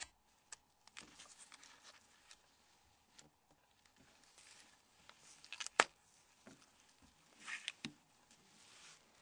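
Faint rustling and small clicks of gloved hands handling a Nokia N76 mobile phone's plastic parts as the hinge cover is pressed onto its hooks. One sharp click comes about six seconds in, and a few more follow a couple of seconds later.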